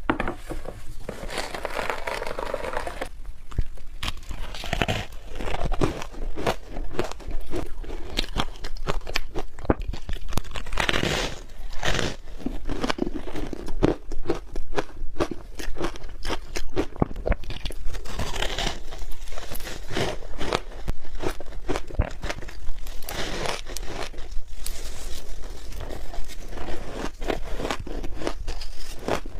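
Close-up crunching of frozen ice being bitten and chewed: dense crackling clicks, with a louder crunchy bite every few seconds.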